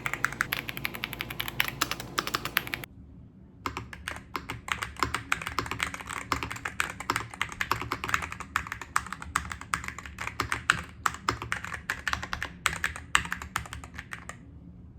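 Rapid typing on a keyboard's keys for a sound test, starting with the Aula AG60 Pro magnetic keyboard: a fast run of key clicks, a short pause about three seconds in, then a second, longer run of clicking.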